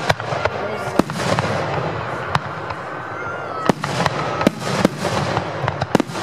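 Aerial fireworks shells bursting in a display: a string of sharp bangs, coming more often in the second half, over a steady din of noise between them.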